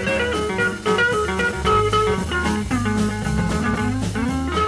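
Rock-and-blues band playing: guitar lines over a bass line and a steady beat.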